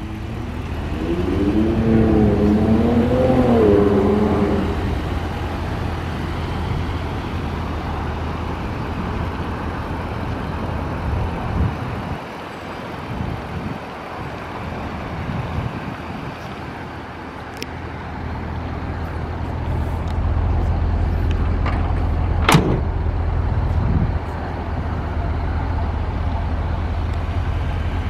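Ford F-250 pickup's gas engine idling with a steady low rumble that dips for a few seconds midway and grows louder later on. A wavering tone rises and falls for a few seconds near the start, and a single sharp knock comes about two-thirds of the way through.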